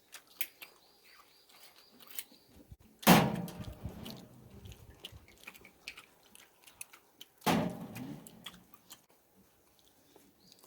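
People eating at the table: chewing and small clicks of cutlery and dishes, with two louder short knocks or thumps about three and seven and a half seconds in.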